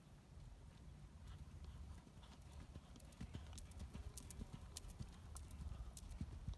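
Faint hoofbeats of a ridden horse cantering on sand footing, with sharp clicks that come more often from about halfway through, over a low rumble.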